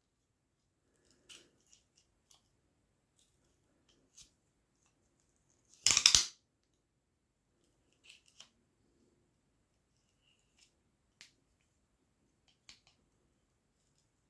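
A handmade navaja folding knife with a hidden ratcheting mechanism being handled: faint scattered metallic clicks, and one loud sharp snap about six seconds in.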